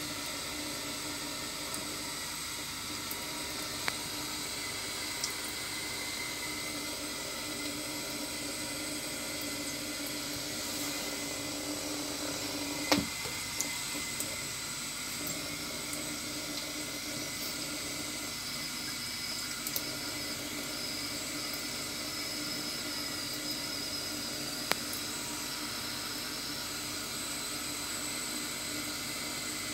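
Kitchen tap running a thin stream into a stainless steel sink: steady splashing hiss, with a few light clicks and a sharper knock about halfway through.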